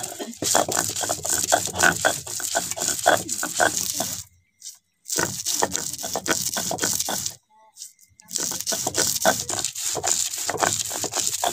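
A stone roller grinding soaked urad dal on a grooved stone slab (sil-batta), rough, rhythmic scraping strokes of stone on stone through wet grain. The grinding runs in three spells, with two short pauses about four and a half and eight seconds in.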